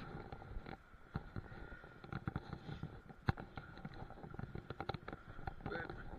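Faint, scattered clicks and knocks of stones and gear shifting underfoot on a rocky shore.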